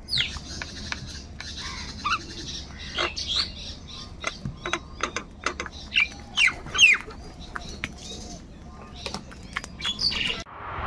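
A flock of house crows cawing, many short calls overlapping at irregular intervals, several of them falling in pitch, the loudest about seven seconds in.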